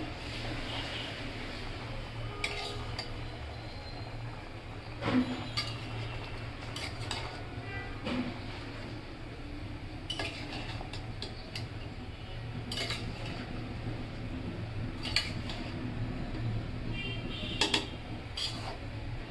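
A spatula stirring and turning chunks of bottle gourd and fish in an aluminium pan, with scattered clinks and scrapes of the spatula against the pan at uneven intervals. The loudest knock comes about five seconds in.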